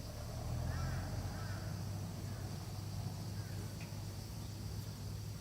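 Forest ambience: a steady high-pitched insect drone with a few short bird chirps about a second in, over a low steady rumble.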